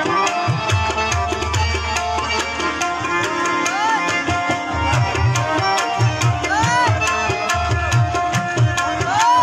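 Qawwali music: tabla playing a fast, steady beat under held melody notes, with a few short notes that slide up and back down.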